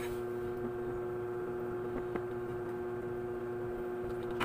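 A steady hum at one pitch with faint overtones, with a few faint clicks about two seconds in and a sharper click at the end.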